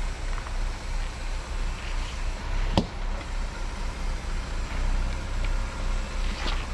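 Off-road Jeep's engine running low and steady as it crawls over rock, with one sharp knock a little under three seconds in.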